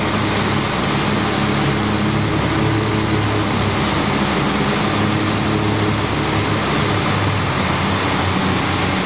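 The boat's twin Scania 12-litre six-cylinder diesel engines running steadily under way, a deep even drone over a constant rushing hiss.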